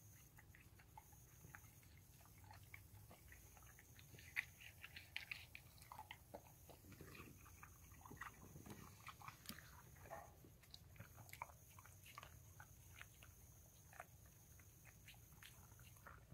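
Dog chewing a piece of watermelon: a faint string of small bites, clicks and smacks, busiest in the middle.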